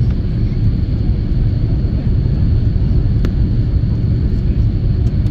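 Steady low rumble of airflow and engine noise inside the cabin of an Airbus A330-343 with Rolls-Royce Trent 700 engines, descending on approach to land. A faint steady high whine runs through it, and a single small click sounds about three seconds in.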